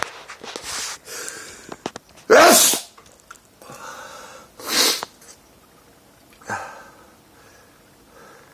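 A man's allergic sneezing: two loud sneezes about two and a half seconds apart, the first the loudest, then a smaller burst a couple of seconds later.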